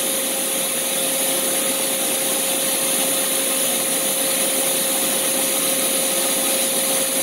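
Steady running noise of a Mazak CNC lathe: an even whirring hum with a constant mid-pitched whine.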